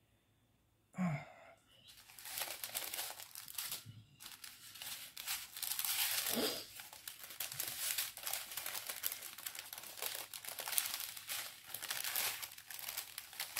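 Plastic packaging crinkling and rustling as it is handled, starting about two seconds in, after a brief sigh-like vocal sound.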